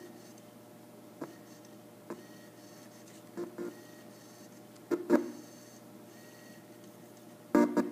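Bose Wave II's CD player skipping: about five brief snatches of music, each a fraction of a second, break through over a faint steady hum as the disc fails to play on. The owner calls the fault temperature-related and suspects the unit's aging surface-mount electrolytic capacitors.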